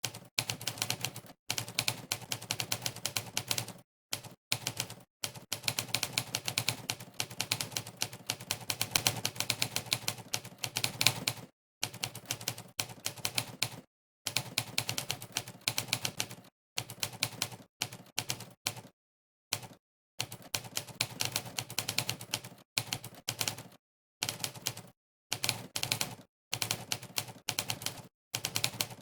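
Typewriter keystroke sound effects from the Monkeytype typing test, one clack per key press, in fast runs of rapid clacks broken by short pauses of total silence.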